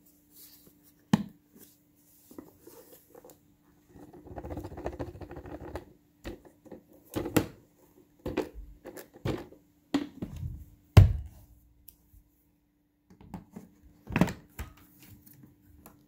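Handling the emptied plastic dust bin of a Bissell Powerforce Compact vacuum, with the motor off. It gives scattered plastic clicks and knocks, a rustling about four seconds in as dust and hair are shaken out, then a string of sharper knocks.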